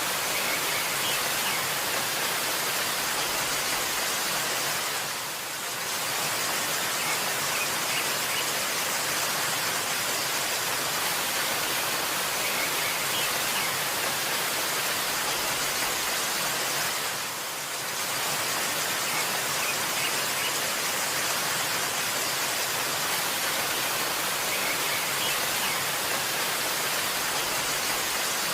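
Waterfall rushing steadily, with a few faint bird chirps. The rush dips briefly twice, about twelve seconds apart.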